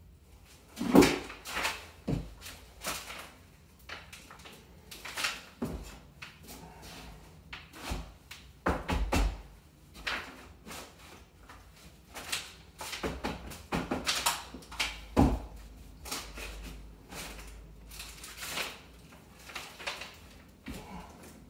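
Irregular clunks, knocks and scrapes of wood and metal as a heavy cast iron radiator is levered and shifted on stacked wooden blocks, with a few heavier thumps among them.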